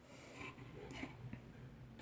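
Faint handling sounds of Cat6 cable being worked by hand: light rustles and a couple of soft clicks, about half a second and a second in.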